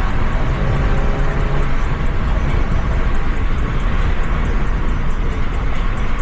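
Car on the move: steady, loud road and wind noise with a deep engine rumble underneath.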